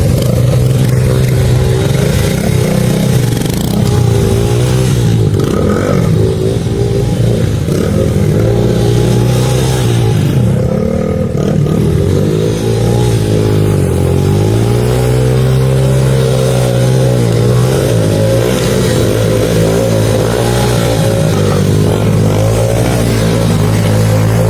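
Motorcycle engine running under load off-road. The engine note dips and climbs back several times around the middle as the throttle is closed and reopened.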